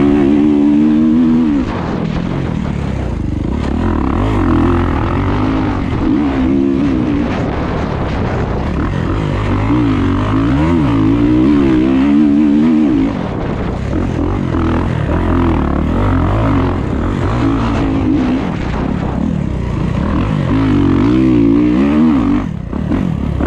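Kawasaki dirt bike engine ridden hard, its revs rising and falling again and again as the rider works the throttle through the gears, heard close up from onboard.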